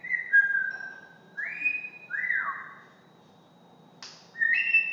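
African grey parrot whistling: a string of short clear whistled notes, several gliding down in pitch, with a brief breathy burst about four seconds in.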